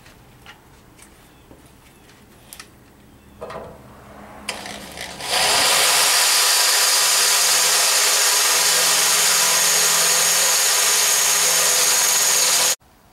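Corded electric drill boring a hole through a Jeep's sheet metal. After a few faint clicks and brief start-ups, it runs loud and steady for about seven seconds, then cuts off suddenly near the end.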